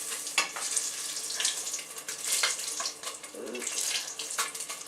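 Fish pieces frying in hot peanut oil, sizzling with many sharp crackling pops.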